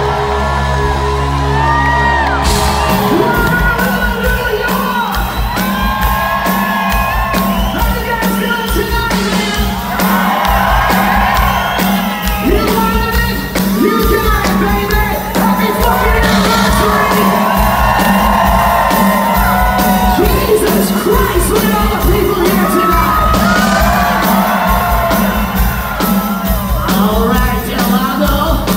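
Live hard rock band in a large hall, electric guitar, bass and drums, with a male rock singer belting over it. A held chord rings for the first few seconds, then the drums come in with fast, driving kick-drum beats.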